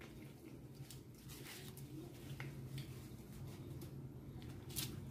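Faint eating sounds: chewing and the crinkle of a shawarma's paper wrapper, as scattered small clicks and crackles over a steady low hum.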